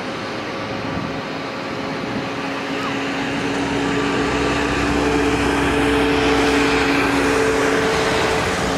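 Rolls-Royce Trent 7000 turbofans of a TAP Airbus A330-900neo running at high thrust as it rolls down the runway for take-off. The jet noise grows louder through the middle with a deep rumble and a few steady engine tones under it, and stays strong near the end.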